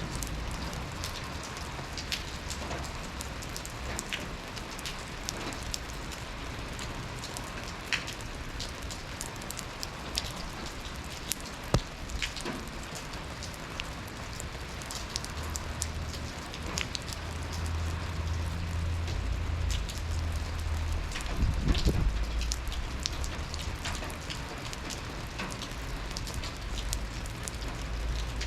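Slow, cold rain falling steadily, with many separate drops tapping close by. A low rumble swells up past the middle and fades again.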